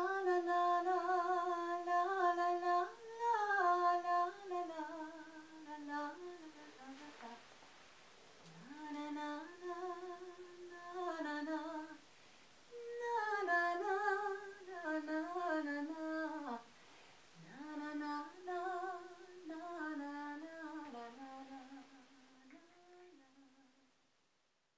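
A woman humming a slow wordless melody in several phrases with short pauses between them, fading away near the end.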